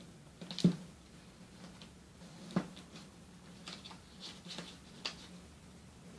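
Origami paper being folded and creased by hand on a tabletop: small crackles of stiff paper, with two sharper knocks, one just over half a second in and one about two and a half seconds in, and a few lighter ticks near the end.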